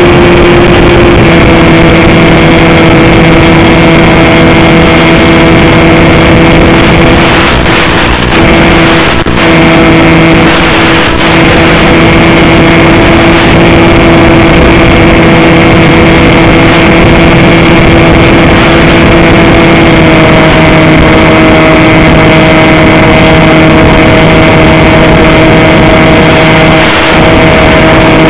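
Bixler 2 RC plane's electric pusher motor and propeller, running at steady flight throttle and heard loud through the onboard camera's microphone as a steady droning whine with wind rush. Its pitch shifts slightly a couple of times, and there are brief breaks about 8 and 9 seconds in.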